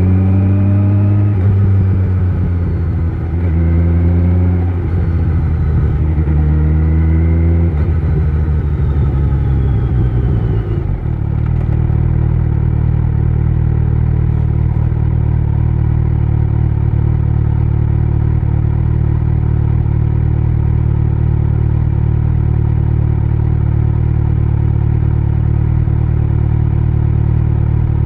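Kawasaki Z900 inline-four with an Akrapovic exhaust accelerating through several gears, its pitch rising and dropping back at each upshift. About eleven seconds in, it settles into a steady, unchanging engine note.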